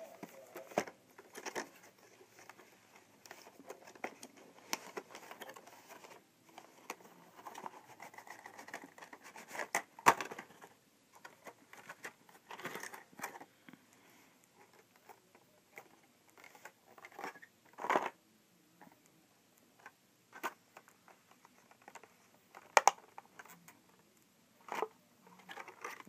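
Cardboard box and clear plastic clamshell packaging being handled and opened: irregular rustling and crinkling with scattered sharp clicks and knocks, the loudest about ten seconds in.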